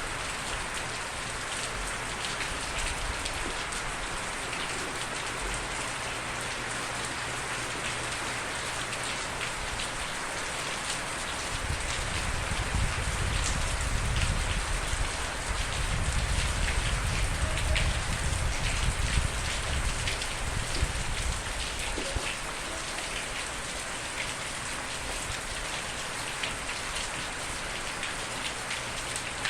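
Steady heavy rain falling on a surface, a dense hiss with many separate drop ticks. A deeper low rumble swells in for several seconds in the middle, then eases off.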